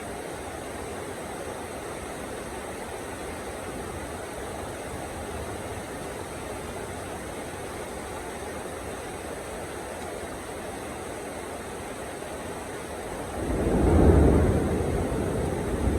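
Steady heavy rain falling, then about thirteen seconds in a low rumble of thunder swells up loud and keeps rolling.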